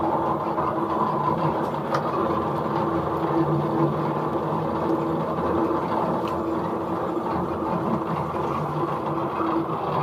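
Rubber sheet roller mill running with a steady, even mechanical hum.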